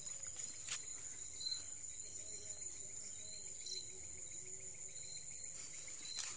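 Crickets chirring at night: a steady, continuous high-pitched trill with shorter repeated chirps over it, and a few faint clicks.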